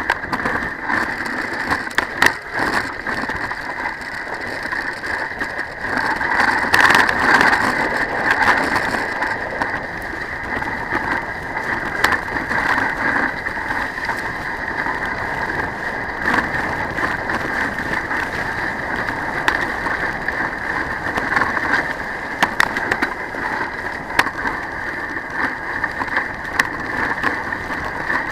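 Toboggan sliding fast down a packed-snow run: a steady scraping hiss from the runners on the snow, with constant small clicks and rattles. It grows louder for a few seconds about six seconds in.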